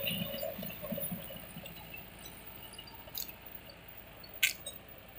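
Tractor with a rear rotavator tilling, its engine and clattering blades fading as it moves away. A sharp click comes about four and a half seconds in.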